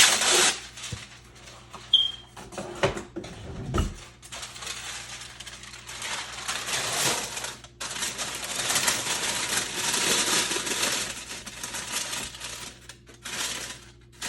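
Parchment paper rustling and crinkling in long stretches as it is pulled off, torn and pressed into an air fryer basket. A few sharp clicks and a dull thud come in the first few seconds.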